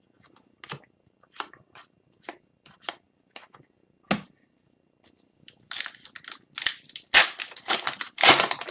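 Hockey trading cards being flicked through one by one, a light snap every half second or so. About five seconds in, a foil card pack is torn open and crinkled, louder and more continuous.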